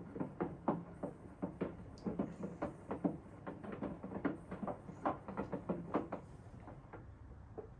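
A quick, irregular run of knocks, about three a second, from a Hoover washing machine starting a short cycle, dying away near the end over a low steady hum.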